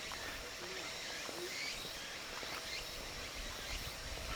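Outdoor nature ambience: a steady high insect trill with scattered short bird chirps over it.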